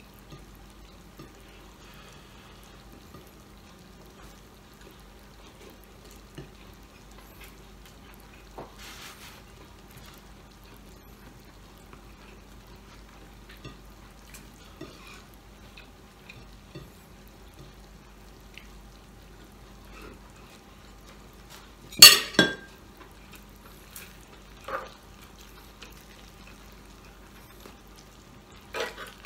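Faint sizzling of pork sisig kept hot in a pan on a tabletop stove, with a few sharp clatters of a metal spoon against the pan and dishes. The loudest is a double clatter about three-quarters of the way through.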